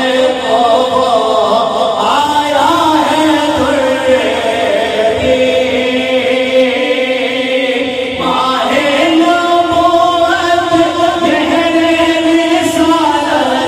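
A naat sung in long, slow, held melodic lines by voices.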